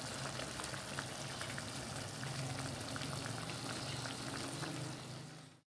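Buttered shrimp sauce bubbling and sizzling in a stainless steel pan, a hiss with small crackling pops over a steady low hum. It cuts off abruptly near the end.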